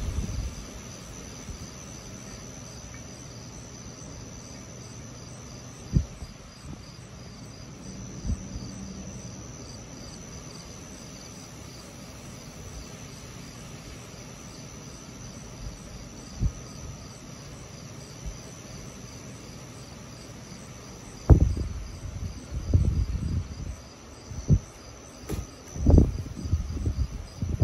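Crickets chirping steadily at night, high-pitched and even. Short low thumps come now and then, and a run of heavier low thumps and rumbles fills the last several seconds.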